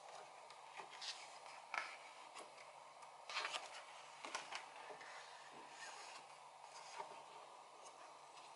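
Faint rustling and scraping of paper as the pages of a printed photo book are handled and a page is turned over, a few short rustles with the loudest a little past the middle. A low steady hum sits underneath.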